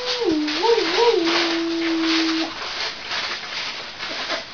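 A man howling like a dog: one long held note that drops in pitch, wavers up twice, then holds lower and stops about two and a half seconds in.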